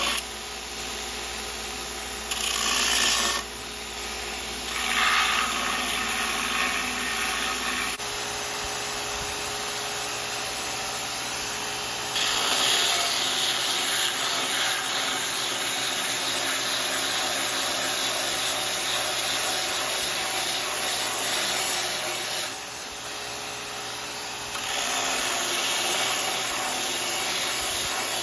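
Electric belt grinder running, its abrasive belt sanding a wooden axe handle. The grinding hiss swells in spells as the wood is pressed to the belt and drops back as it is eased off, over a steady motor hum.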